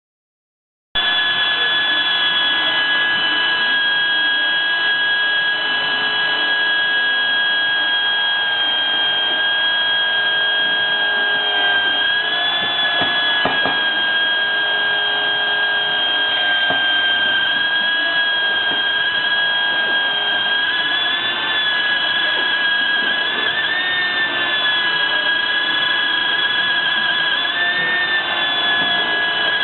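Pneumatic (air) belt sander starting about a second in and running at speed with a steady high whine, its pitch dipping and recovering slightly a few times.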